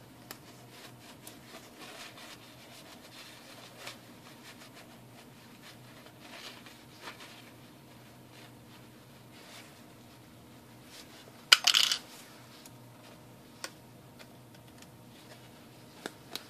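Small cleaned metal battery terminals clinking and tapping as they are handled and dropped into a plastic parts container, with one louder brief rattle a little past the middle.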